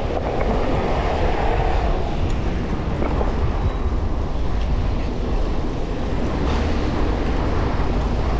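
Steady wind and road rumble picked up by an action camera's microphone while riding a bicycle, loudest in the low bass.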